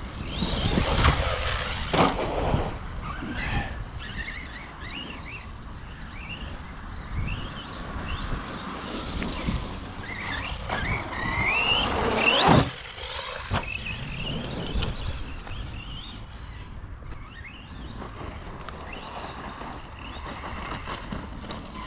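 Brushless electric motor of a radio-controlled off-road truck whining as it is throttled up and down, over and over. There are a few sharp knocks, the loudest about twelve and a half seconds in, where the run noise suddenly drops.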